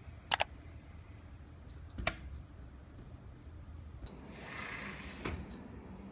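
A pleated window blind being handled by its bottom rail: a sharp double click just after the start, another click about two seconds in, then a brief rustle with a last click near the end.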